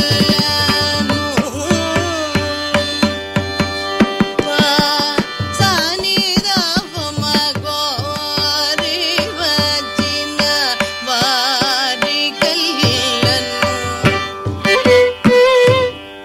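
Carnatic classical concert music in raga Shankarabharanam: a singer and violin trace heavily ornamented, wavering melodic lines over a busy stream of mridangam strokes.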